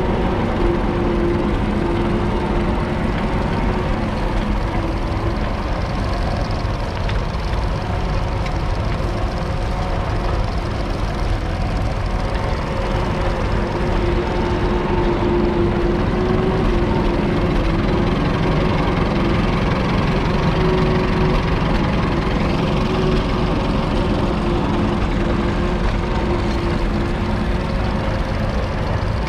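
1942 Fordson Model N's 4.4-litre four-cylinder petrol/TVO engine running steadily under load, pulling a two-furrow trailed plough through the ground.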